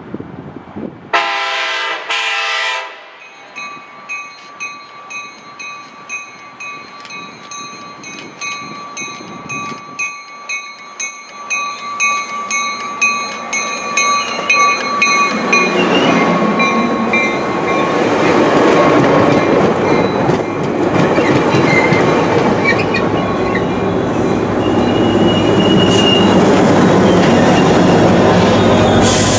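Trinity Railway Express commuter train approaching: a horn blast about a second in, then a bell ringing in steady, evenly spaced strokes. From about halfway the rumble and rail noise of the cab car and coaches passing grows loud, ending with the diesel locomotive pushing at the rear going by.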